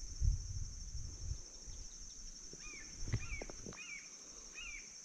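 Steady high insect drone, like crickets, with a bird giving a short curved chirp about five times in quick succession from about halfway in. A low rumble comes in the first second and a half.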